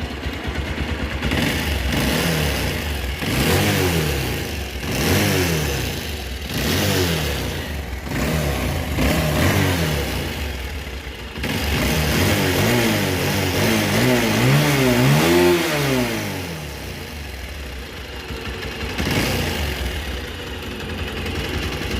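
Bajaj Pulsar 220's single-cylinder engine being revved over and over, climbing and dropping back each time, with a run of quick blips around the middle before it settles back toward idle. The owner flags the engine's noise as a problem.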